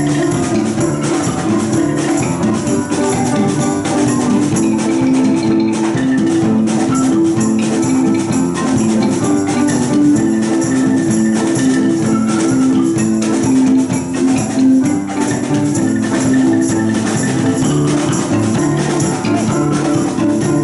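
Music with a steady percussive beat over sustained pitched notes.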